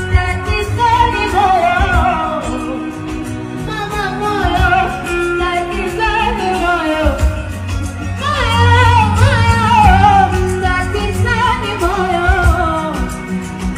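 A singer's voice carrying a melody over amplified band music with a heavy bass line, as at a live sound check.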